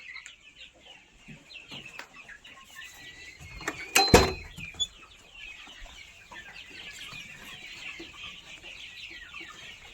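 Free-range chickens clucking, with a steady stream of many short, high calls. A few loud sharp knocks come together about four seconds in.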